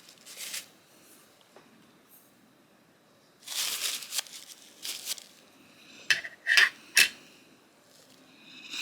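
Paper towel rubbing over a knife's liner in short wiping strokes, followed by three sharp, slightly ringing clicks about half a second apart.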